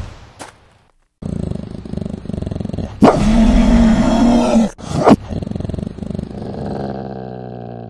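An animal growl-and-roar sound effect for a wolf-like monster. It starts abruptly with a rough growl about a second in, rises to a loud roar about three seconds in that lasts under two seconds, then goes back to growling and ends on a lower, steadier growl.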